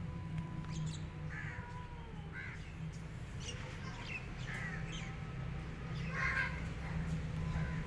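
Birds calling outdoors: short calls about once a second, over a steady low hum.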